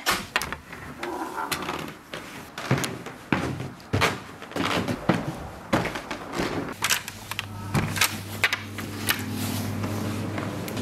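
Footsteps with a string of irregular knocks and thuds from doors and carried bags, the loudest right at the start. A steady low hum comes in about seven seconds in.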